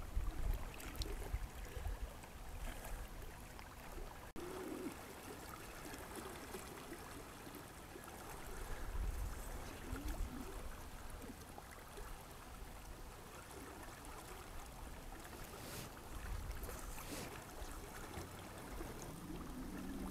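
Faint, steady rush of river water flowing over a riffle, with uneven low rumbles of wind buffeting the microphone.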